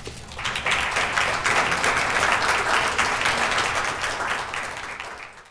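Audience applauding: many hands clapping, starting about half a second in and fading away near the end.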